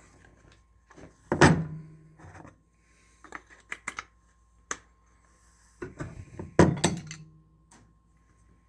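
Knocks and clunks from handling an AR-15 rifle and its handguard and pliers: two heavy thunks, about a second and a half in and near seven seconds, each with a short ringing tail, and light clicks and taps between them.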